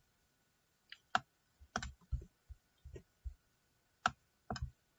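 About a dozen faint, sharp clicks and light taps at irregular intervals, close to the microphone, in the manner of keys or a mouse being clicked. A faint steady high hum runs under them.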